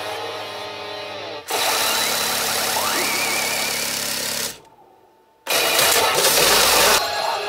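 Pachinko machine sound effects from P Hokuto no Ken 9 Toushin: after music, a loud rumbling build-up with a rising whistle-like tone, a sudden cut to near silence, then about five and a half seconds in a sudden loud crash-like jackpot-confirmation sound (kakutei-on) signalling a guaranteed big win.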